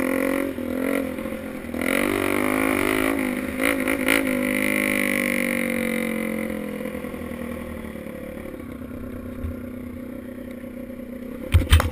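Dirt bike engine revving up and down as the bike is ridden over a rough dirt trail. About four seconds in the revs fall away in one long glide and the engine runs quieter and steadier, with a few loud clattering knocks just before the end.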